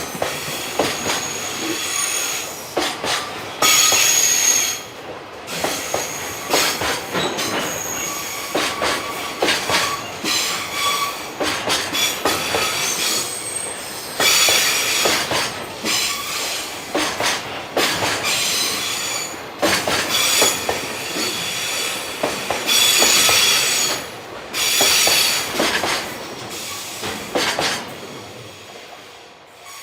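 Freight train passing, its wheels squealing in high-pitched bursts that come and go over a run of clacks from the wheels on the rail. The sound fades away over the last few seconds.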